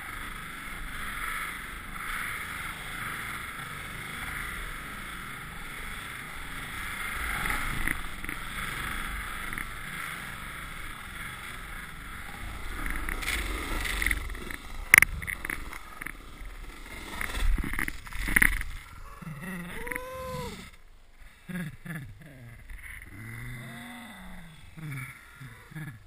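Rushing wind and snow noise of a fast downhill mountain-bike ride through snow, with a few sharp knocks and jolts past the middle as the bike bumps along. In the last several seconds, after the crash, a person gives short cries that rise and fall in pitch.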